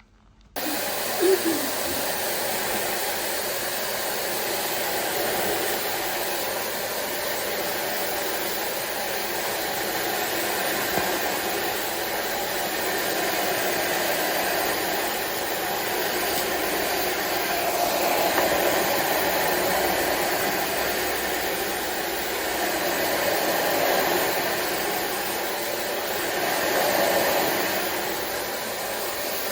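SilverCrest SHZK 600 2-in-1 vacuum cleaner switched on about half a second in and running, a steady rushing whine of motor and suction that swells and eases a little now and then as it is used.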